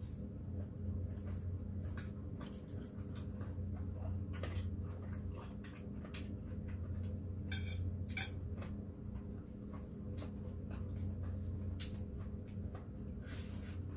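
Eating sounds: chewing and mouth noises with chopsticks clicking against dishes, and a short ringing clink a little past the middle, over a steady low hum.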